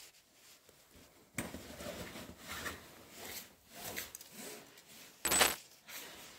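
Rustling and light clattering of handheld gear being handled, in uneven swells, with one sharp, louder rustle about five seconds in.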